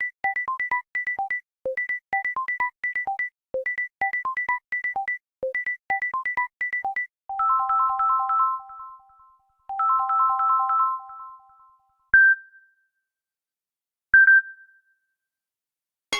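Samsung Galaxy stock phone tones playing in turn. First comes a staccato electronic ringtone phrase of short high notes, repeating about every two seconds. Then a tone of quick repeated three-note chords plays twice, and near the end a single bright chime sounds twice, about two seconds apart.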